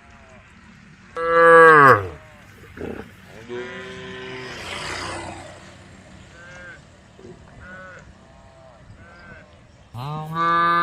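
Cattle mooing: several cows calling to one another, with a loud, close moo about a second in and another near the end, and fainter moos from other animals in between. A brief rushing noise rises under the calls about four seconds in.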